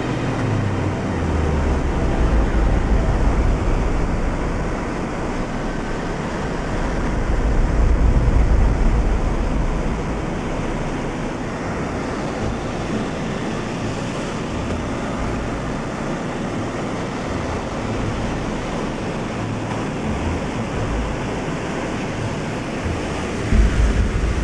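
Steady roar of a B-24 Liberator's four Pratt & Whitney R-1830 radial engines and the slipstream, heard from inside the fuselage in flight, with wind buffeting the microphone. A brief louder bump near the end.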